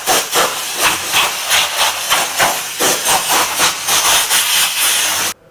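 Air blower hissing as dust is blown out of the open mixing console's chassis, swelling and dipping about two to three times a second, then cutting off suddenly near the end.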